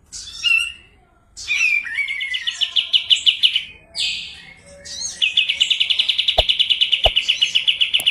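A kapas tembak songbird singing: a few short chirps and whistles, then fast rattling rolls of rapid notes, the second one long and unbroken. Two sharp clicks sound near the end.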